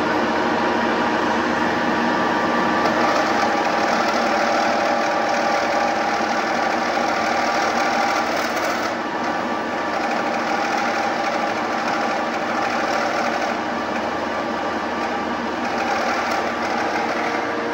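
Metal-turning lathe running steadily, its motor and gearing giving a dense mechanical sound with several steady tones, slightly quieter from about halfway on.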